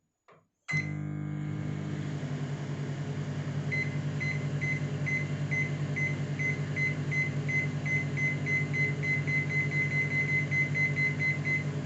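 Whirlpool microwave oven starting up about a second in and running with a steady electrical hum. From about four seconds in comes a rapid run of short high beeps as the up-arrow key is pressed repeatedly, each press adding 30 seconds of cooking time.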